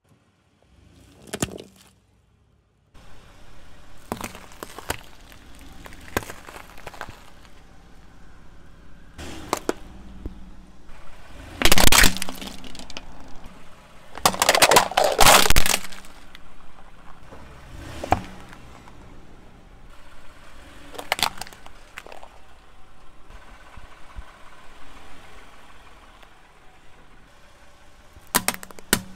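Car tyre rolling over and crushing plastic containers on asphalt, a plastic coffee-creamer bottle and plastic cups among them, with a series of sharp cracks and crunches. The loudest burst of cracking comes about halfway through.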